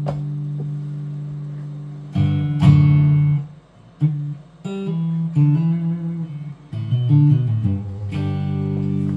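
Guitar music: a held chord, two strummed chords about two seconds in, a short run of single notes, then another strummed chord held near the end.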